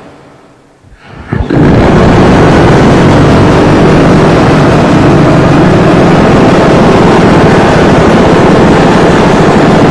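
Harsh noise: a dense, heavily distorted wall of sound at full level. It opens on the fading tail of the previous blast and a brief lull, then stutters back in about a second and a half in and holds steady to the end.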